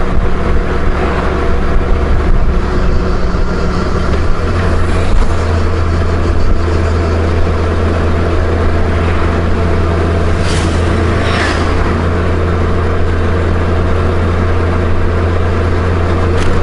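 Honda Gold Wing flat-six touring motorcycle cruising at a steady speed, heard from on board as a loud, even drone of engine and road noise. Two brief higher sweeps come about two-thirds of the way in.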